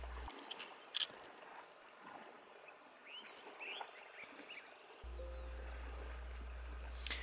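Rainforest insects droning steadily at a high pitch, with a few faint short chirps around the middle and a single sharp click about a second in.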